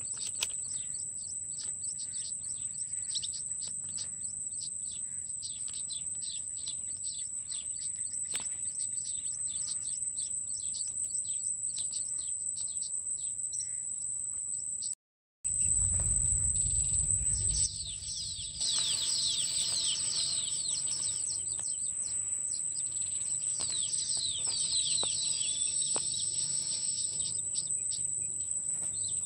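Birds chirping and singing over a steady high-pitched insect drone. The sound drops out briefly about halfway through. A low rumble follows for a couple of seconds, then the bird song grows busier.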